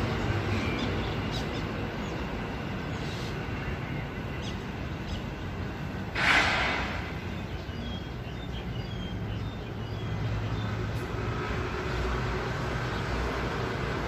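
A myna giving one loud, harsh rasping call about six seconds in, then a few faint short chirps, over a steady low background rumble.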